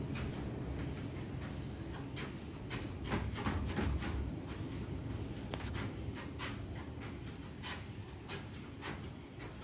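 Motorised treadmill running at walking pace with a low steady hum, and a child's bare feet patting on the moving belt about twice a second.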